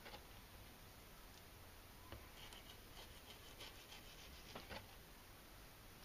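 Near silence with faint scratching and a few light ticks from a kitchen knife on a wooden cutting board as the skin is cut away from a yellowtail fillet.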